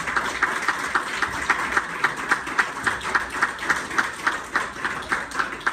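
A small group applauding, with sharp hand claps at about four a second.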